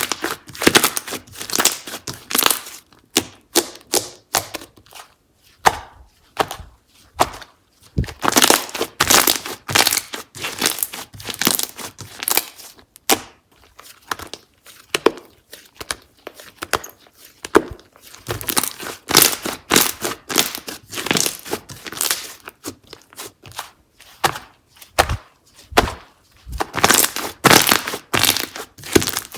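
Slime being squeezed, stretched and poked by hand, giving clusters of quick sticky clicks and pops with brief pauses between them.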